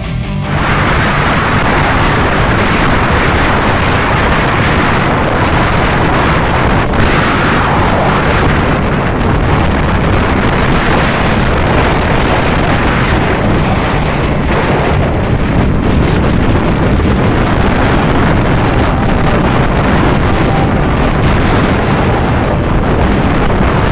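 Strong wind buffeting the microphone: a loud, steady, rumbling rush of noise.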